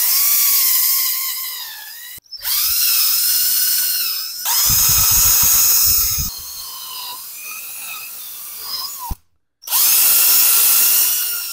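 DeWalt 18V cordless drill spinning a wire brush against the 8 hp Tecumseh engine's gasket surfaces, scrubbing off leftover gasket. It runs in several bursts with a scratchy hiss, its whine dipping and rising as the brush bites, and it stops briefly twice.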